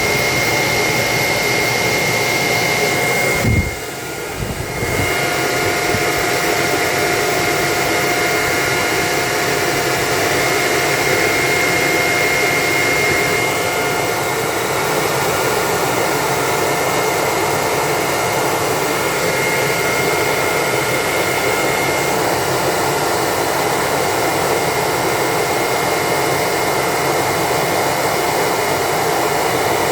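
Steady, loud rushing hiss of air with a thin steady whine over it, from a running machine; it drops away briefly about four seconds in with a low thump, then comes back.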